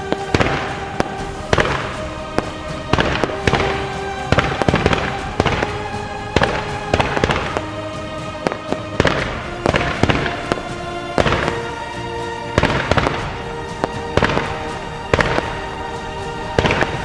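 Fireworks shells bursting in a display, with sharp bangs at irregular spacing, often more than one a second, over music with sustained notes.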